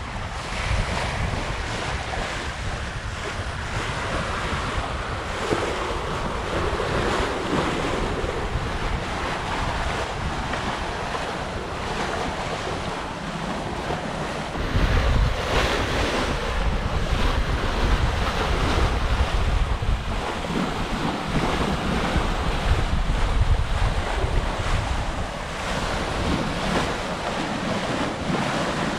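Sea rushing and splashing along the hull of a Hallberg-Rassy 54 sailboat as its bow cuts through the waves under sail, with wind buffeting the microphone. The rumble of wind and water gets louder about halfway through.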